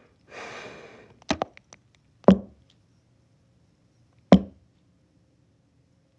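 Sharp knocks close to the microphone as a small object is handled against the phone or a hard surface: a quick double knock, then a single knock about a second later and another two seconds after that. A brief soft rustle comes just before the first knocks.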